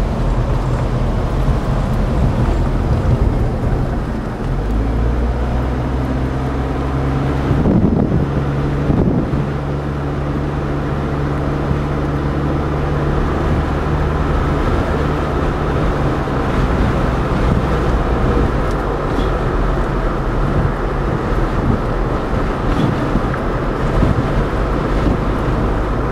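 Car running along a road, heard from inside the cabin: a steady engine hum and road noise with some wind on the microphone. The engine note shifts about four seconds in, and there are two brief louder bumps around eight and nine seconds in.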